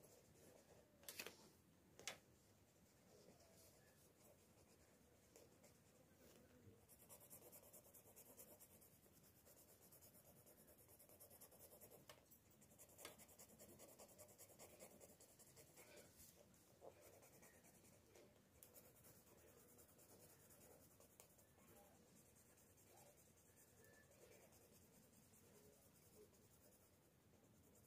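Very faint scratching of a black pen colouring in a small patch on folded lined paper, with a few soft taps in the first couple of seconds; otherwise near silence.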